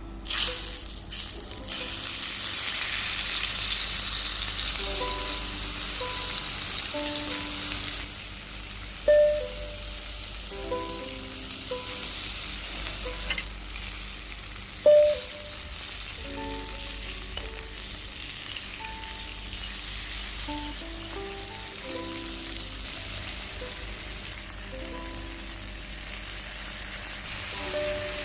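Beef steak searing in a little oil in a hot pan: a steady sizzle that starts suddenly as the meat goes in. Two brief louder sizzle flares or knocks come about a third of the way in and about halfway.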